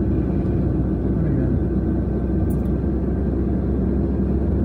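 Steady low rumble of a car's engine and tyres on the road from inside the moving car, with a brief tick about two and a half seconds in.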